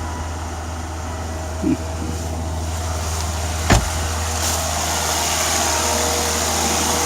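Turbocharged Volvo car engine idling steadily on fresh oil and a new filter, just after the oil change; it sounds good. A single sharp click a little past halfway.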